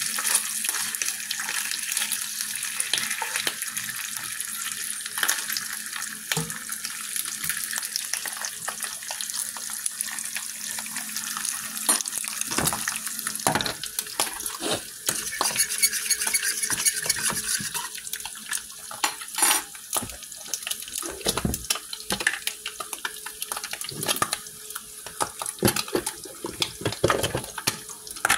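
Turkey bacon frying in a cast-iron skillet: a steady hiss full of small crackles. From about halfway, knocks and clicks of pots being handled and stirred are heard over it.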